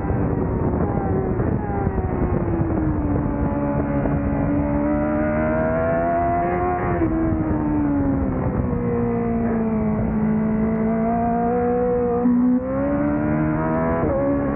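Honda CBR1000RR-R Fireblade's inline-four engine at track speed over wind noise, its revs falling, climbing and falling again through the corners. Near the end the engine note jumps up sharply once, with a brief louder burst.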